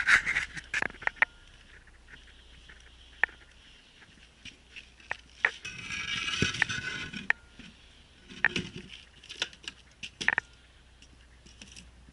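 Handling and movement noise close to the microphone: scattered clicks, knocks and scrapes, with a longer scraping rustle about six seconds in and a dull thump a couple of seconds later.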